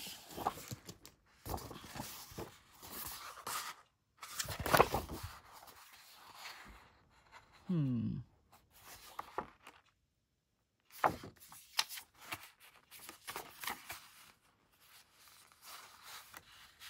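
Paper being handled at a desk for a journal page: paper rustling, tearing and scraping in short irregular bursts, with a few light knocks. A short tone falling in pitch is heard about eight seconds in.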